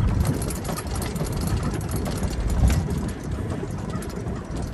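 A vehicle's engine running with a steady low rumble, with frequent light knocks and rattles.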